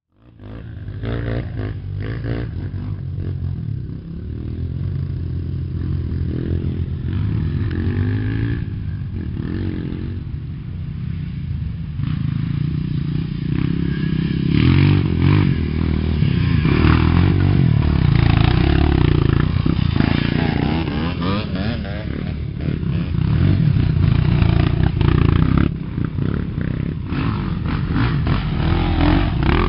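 Several off-road dirt bike engines running and revving, their pitch rising and falling with the throttle and growing louder as the bikes approach.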